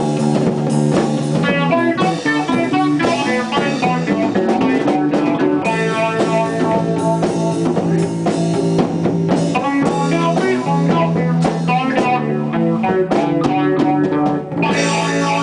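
Live band playing amplified electric guitars, with dense, loud sustained chords and riffs.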